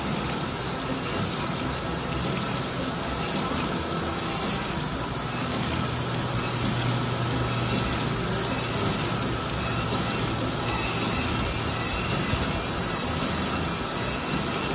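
Crankshaft grinder regrinding a rod journal on a Volvo Penta 8.1 marine engine's crankshaft, running steadily with a low hum and coolant splashing over the journal. The journals are being ground undersize to clean up damage left by seized rod bearings.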